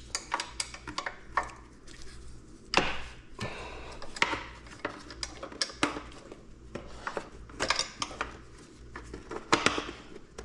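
Irregular metallic clicks, clinks and short rattles of hand tools: sockets and a ratchet handled while unbolting a motorcycle foot peg.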